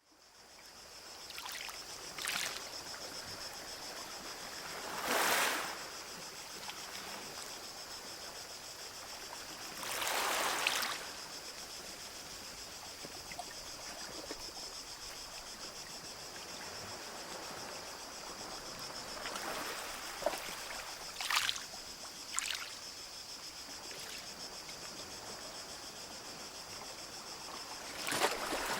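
Gentle sea waves washing onto a beach: a steady hiss of water with a separate wave surging in every few seconds, loudest about five and ten seconds in, and fading in at the very start.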